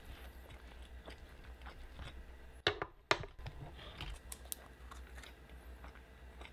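Close-up chewing of a mouthful of cheesy carne asada fries, with small wet mouth clicks. Two sharp clicks stand out about two and a half to three seconds in, from handling a small plastic sauce cup and its lid.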